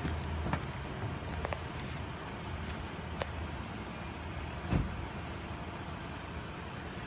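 A car engine idling as a low steady hum that fades after the first half-second. A few light clicks and one dull thump come through about five seconds in.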